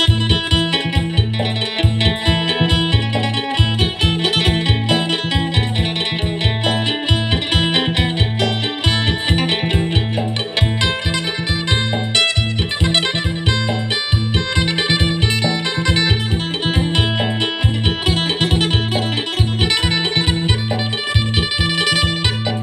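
Acoustic phin, the Isan plucked lute, playing a fast, busy melody in phin-sing style over a steady low rhythmic pulse.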